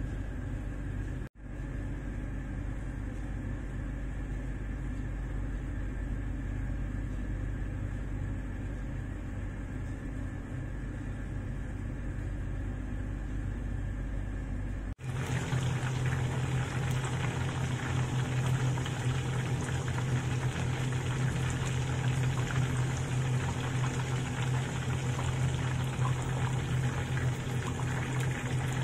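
Steady low background hum, then, after a sudden cut about halfway, chicken deep-frying in a pot of hot oil: steady sizzling and bubbling over a low hum.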